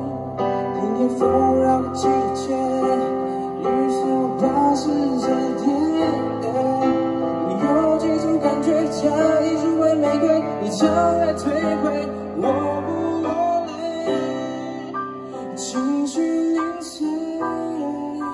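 A man singing a Mandarin pop ballad while accompanying himself on an electronic keyboard, his voice sliding over sustained bass notes and chords.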